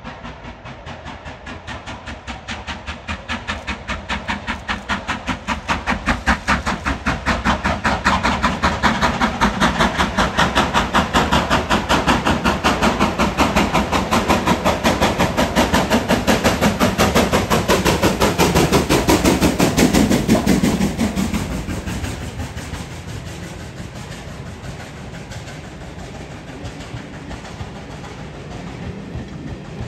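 Steam locomotive working a train past, its exhaust beats coming fast and even. They grow louder over several seconds, stay at a peak, then drop away quickly about 21 seconds in, leaving the lower, steady run of the train on the rails.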